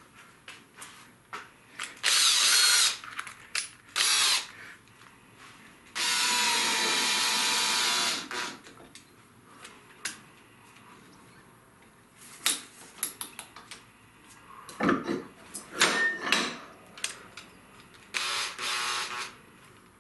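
Cordless drill motor running in several short bursts, the longest about two seconds, with handling clicks between. The chuck is being spun onto a screw-point drive center, and the center is screwed into the end of a plywood blank.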